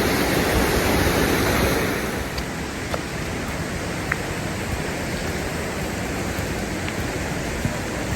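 Steady rush of flowing creek water, a little quieter after about two seconds, with a few faint ticks.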